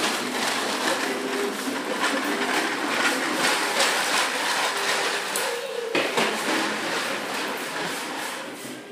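Hard plastic wheels of toddlers' toy push walkers rolling and rattling over a ceramic tile floor, a steady clattering rumble with many small knocks that eases slightly near the end.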